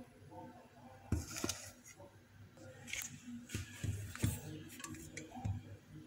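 Light handling noise: about six short clicks and knocks scattered through, with faint rustling in between.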